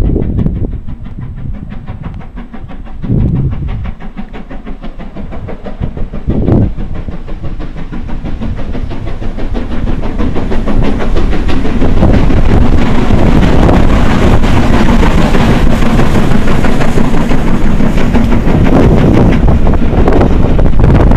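LMS Princess Coronation Class Pacific 46233 Duchess of Sutherland, a four-cylinder steam locomotive, working its train past with rapid exhaust beats and wheel noise. The sound builds to loud about halfway through and stays loud as the engine passes close by.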